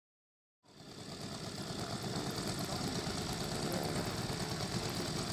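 Saito FG-84R3 three-cylinder four-stroke radial petrol engine in a one-third-scale Piper J-3 Cub model running steadily, fading in just under a second in.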